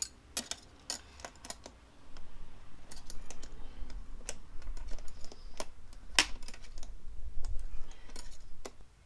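Irregular small clicks and taps of metal hardware being handled, as a bolt is given Loctite and a nut is fitted on the seat spring mount, with a low rumble of handling noise from about two seconds in until just before the end.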